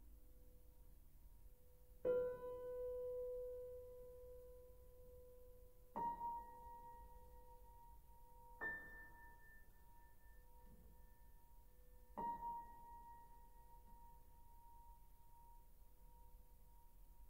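Soft, sparse piano notes: four struck notes a few seconds apart, each left to ring and slowly fade, over a faint held tone.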